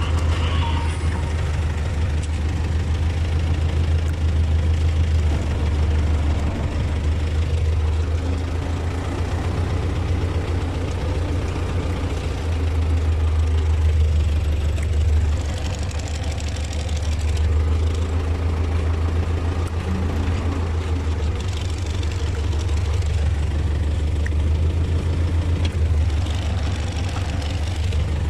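T-40 tractor's diesel engine running steadily with a deep drone, its level swelling slightly now and then as it works.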